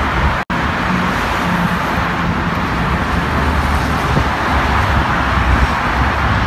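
Steady highway traffic noise: cars and trucks rushing past at speed, with a rumble underneath. The sound cuts out for an instant about half a second in.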